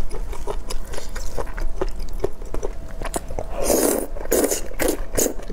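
Close-miked eating of thick noodles in chili oil: small wet chewing clicks, then from about three and a half seconds in several loud slurps as the noodles are sucked in.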